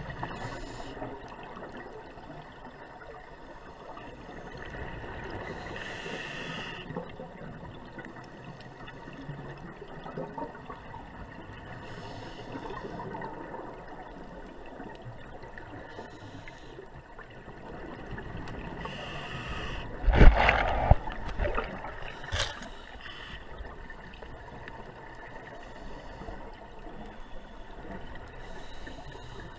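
Scuba regulator breathing heard underwater through a camera housing: a hissing breath with bubbling every five or six seconds over a murky water rumble. A loud thump comes about two-thirds of the way through, with a sharp click a couple of seconds later.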